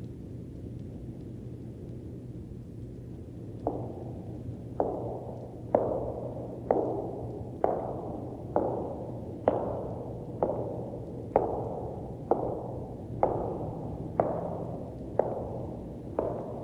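Spooky sound-effect recording of slow, evenly spaced thuds, about one a second and starting about four seconds in, each a sharp knock that dies away briefly, over a steady low hum.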